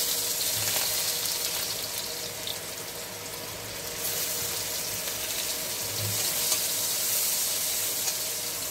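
Sliced onions sizzling in hot oil with whole spice seeds in a kadai: a steady frying hiss.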